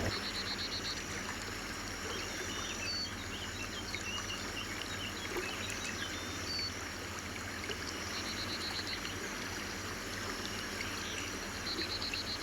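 A stream running over rocks makes a steady rushing sound. A short, rapid pulsing call is heard three times: at the start, about eight seconds in, and near the end, with faint scattered chirps between.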